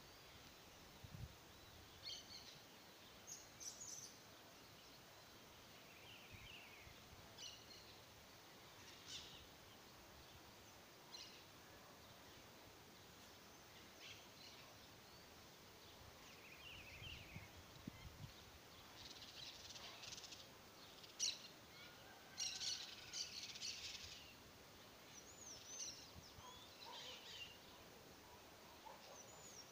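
Faint birds chirping, with scattered short calls and a few rising-and-falling whistles near the end, over an otherwise near-silent background. A few soft thuds and scrapes come from a small hand hoe working soil among chive plants.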